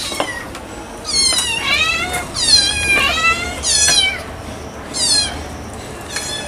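Young domestic cats meowing while food is set down for them: about five high meows in quick succession, each falling in pitch, the loudest about two and a half seconds in.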